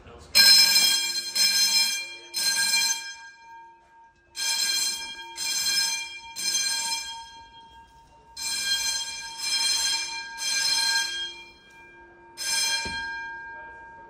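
Fire alarm bell ringing in the code-3 (temporal-3) evacuation pattern: three rings, a pause, then three more, over and over. The last group cuts off after one ring.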